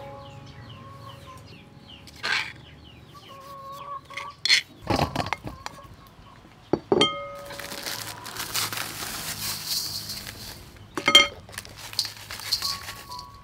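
Chickens clucking, with several sharp knocks and clinks of kitchen utensils, the loudest about eleven seconds in, and a spell of hissing noise lasting about three seconds from roughly halfway through.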